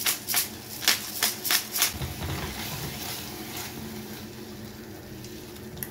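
Silicone spatula scraping and stirring a thick vegetable and tomato stew in a coated pot, a quick run of strokes about three a second for the first two seconds, then the stew frying with a steady sizzle.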